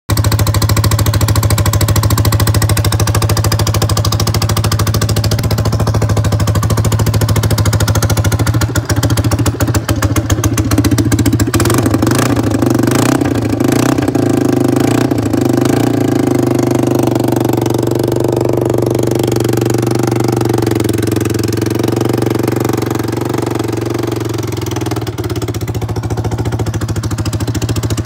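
Harley-Davidson army motorcycle's single-cylinder four-stroke engine running steadily at idle, started without trouble after nearly a year of storage. The revs lift a little about halfway through, then settle back to idle.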